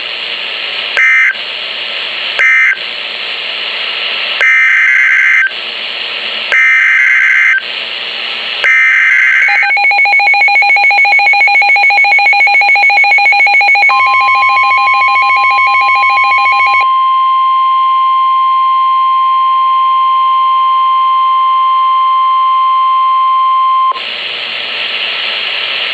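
NOAA Weather Radio Specific Area Message Encoding (SAME) data bursts, a harsh two-tone warble repeated in short blasts over radio hiss. Three short bursts end the previous alert, then three longer one-second bursts carry the header of the next alert. A receiver's rapid pulsing alert beep follows. Then the steady 1050 Hz weather radio warning alarm tone sounds for about ten seconds and stops, leaving hiss.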